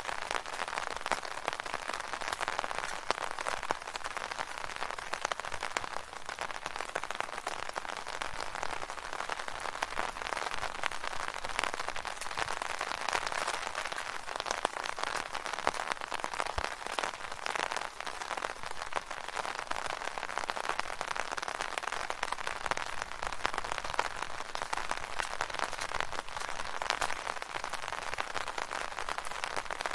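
Rain falling on an umbrella overhead: a dense, steady patter of drops on the stretched canopy.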